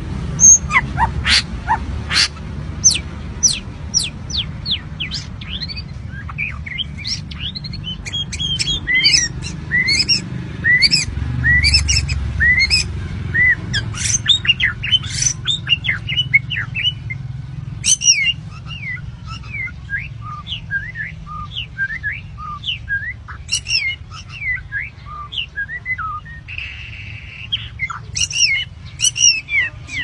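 Songbird singing a fast, varied run of short whistled notes, many sweeping up or down, several a second, with a brief harsh rasp near the end, over a low rumble.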